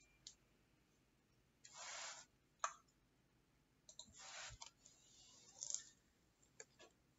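Mostly quiet room with faint handling noise from a laptop being turned and moved: scattered light clicks and two short rustles, about two and four seconds in.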